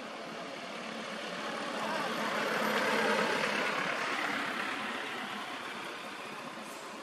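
A vehicle passing by on the road: a rush of road noise that builds to its loudest about three seconds in, then fades away.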